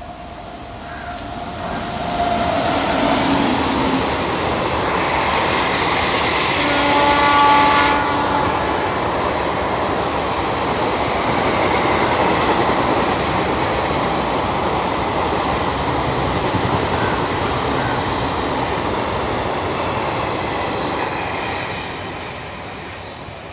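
An Indian Railways express passenger train running past at speed, its noise building over the first two seconds and fading near the end. A multi-tone train horn sounds briefly about seven seconds in.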